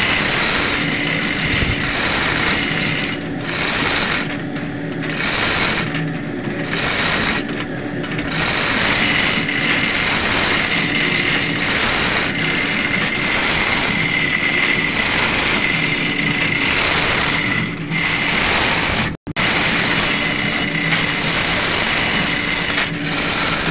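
Manual chain block (chain hoist) being worked hand over hand, its chain rattling and its pawl clicking, over the loud, steady drone of running machinery in an engine room.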